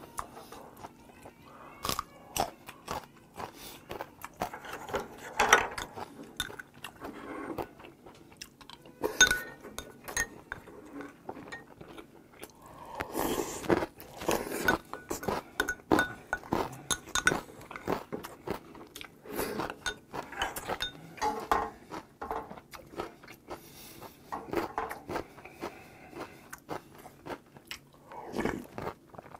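Close-up eating sounds of seonji haejangguk: irregular chewing and smacking with many small clicks, and a slurp of hot broth from a spoon about halfway through.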